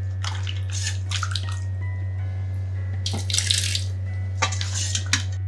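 Cooked potato and onion in broth ladled from a stainless pan into a blender jar, splashing in several short pours.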